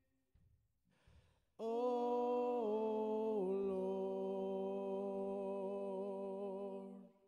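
The closing held note of a worship song, sung and played on keyboard. It comes in loud after a short pause, steps down in pitch twice, holds steady, and stops just before the end.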